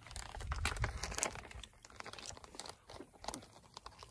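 Plastic food packaging crinkling and rustling in quick irregular crackles, with a low rumble on the microphone through the first second or so.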